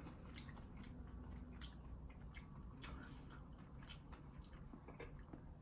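Faint, irregular wet clicks and squishes of a person chewing baked macaroni and cheese with braised kimchi, close to the microphone.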